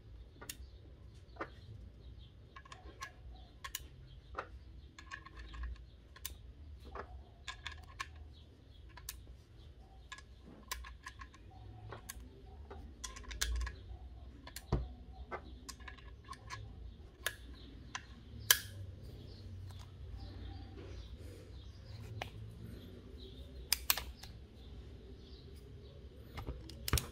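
Irregular small metallic clicks from the action of a Colt Peacemaker (Single Action Army) replica airgun revolver being worked by hand: the cylinder clicking round and the hammer being cocked. A few sharper snaps stand out, the loudest a little past halfway and a quick pair near the end.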